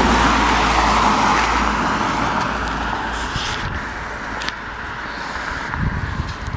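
A car passing on a nearby road, its noise loudest at first and fading away over the next few seconds.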